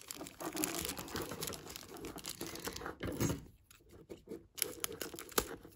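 Thin clear plastic bag crinkling and rustling as it is handled and pulled around a small orchid pot, then a few sharp snips near the end as scissors cut into it.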